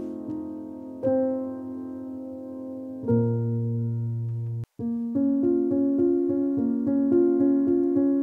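Background piano music: slow held notes, a brief drop-out about four and a half seconds in, then a quicker repeating pattern of notes.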